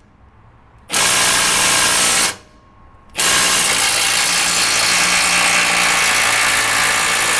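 Cordless impact driver with an 18 mm socket running on the top mounting bolt of an old Fox shock absorber, loosening it for removal: a short run about a second in, a brief pause, then a longer steady run from about three seconds in.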